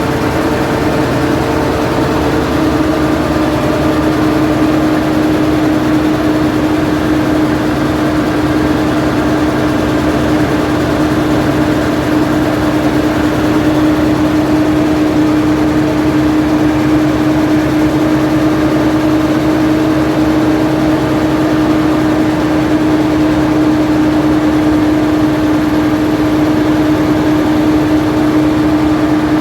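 Alsthom diesel-electric locomotive's engine running steadily at a constant speed, with an even hum over a low rumble.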